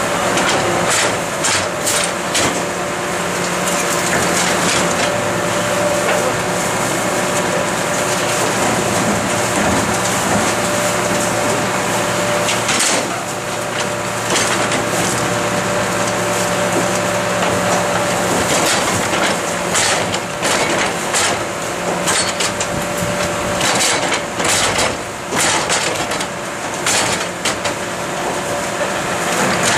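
Rear-loading garbage truck's compactor at work: the engine and hydraulics hum steadily while waste is crushed in the hopper. Repeated clanks and knocks from the bin tipper and plastic wheelie bins come thickest in the second half.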